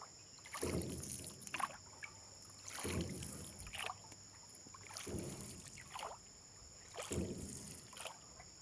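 Oars of a small rowboat dipping and pulling through water, one stroke about every two seconds, each a swishing splash.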